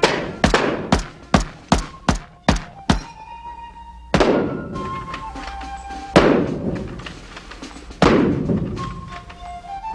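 Rifle fired eight times in quick succession, a little over two shots a second, then three single shots about two seconds apart, each with a long echoing tail, over music with sustained tones.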